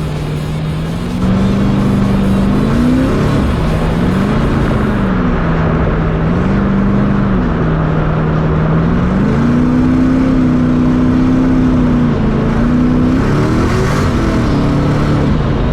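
Twin-turbocharged LSX V8 of a 1969 Camaro running under way. Its revs rise and fall, holding steady for stretches between changes, and climb sharply twice: about three seconds in and again near the end. It gets louder about a second in.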